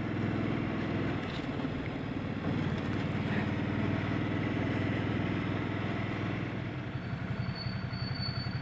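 Ducati Multistrada 1200's L-twin engine running as the motorcycle rides. Near the end a thin, high-pitched brake squeal sounds for about two seconds.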